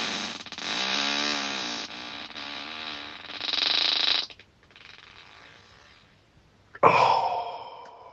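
Human farts. A long, wavering fart lasts about four seconds, then about seven seconds in a second, sharper one starts suddenly and fades out.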